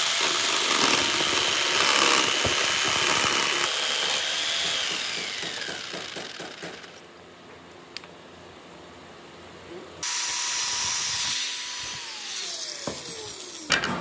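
Electric jigsaw cutting through a pine board, then switched off and winding down, its pitch falling, about five seconds in. About ten seconds in another burst of motor noise starts abruptly and likewise winds down, followed by a sharp click near the end.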